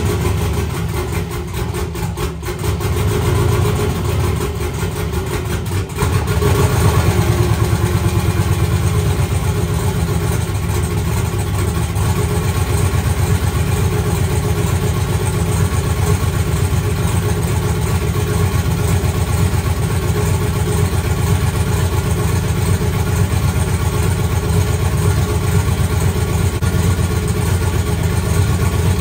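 Turbocharged 5.3-litre LS V8 running at idle just after starting, with no thermostat fitted, as it warms up while oil pressure is watched. It steps up louder about six seconds in, then runs steadily.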